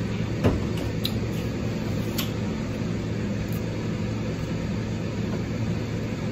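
Steady droning hum and rushing noise, with a few faint sharp clicks.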